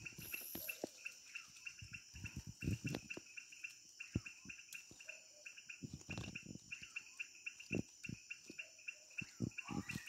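Green parakeet nestlings chirping from inside a tree-hollow nest, a fast run of short, high chirps repeating several times a second, with a few low thuds mixed in.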